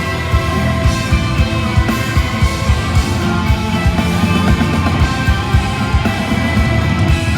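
Rock band playing live, with electric guitars and a steady drum beat.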